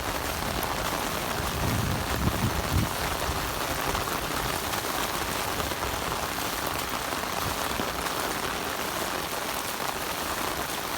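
Heavy thunderstorm rain falling steadily, a dense even hiss of drops hitting ground, plants and water, with a brief low rumble about two seconds in.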